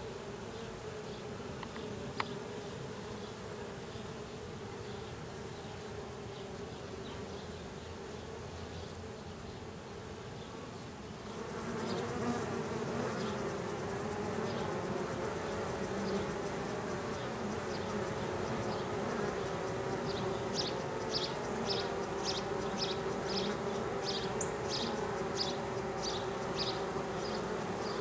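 Honey bees from a newly installed package buzzing in a steady hum as they settle into the hive, growing louder about eleven seconds in.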